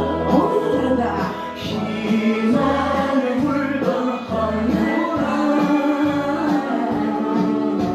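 A song playing with several voices singing, over a regular bass beat.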